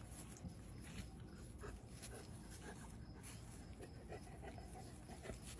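Five-week-old puppies stirring, with faint, scattered short sounds from them.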